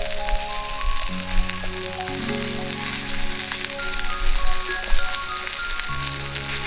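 Garlic shrimp frying in hot oil in a pan, a steady sizzle with fine crackles, under background music of held notes.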